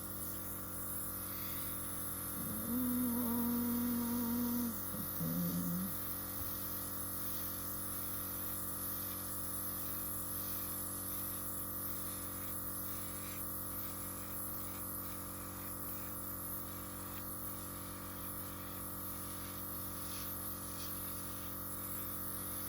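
Air compressor running steadily with an even hum and hiss while it blows wet acrylic paint outward into a bloom. A short two-note pitched sound comes a few seconds in, the first note longer and higher than the second.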